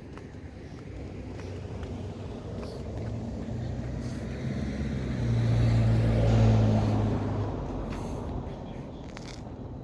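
A road vehicle drives past. Its engine hum and tyre noise build gradually, are loudest about six seconds in, then fade away.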